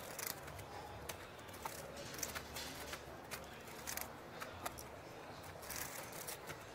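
Faint, irregular clicking of poker chips as a player fingers and shuffles his chip stack, over a low steady room hum.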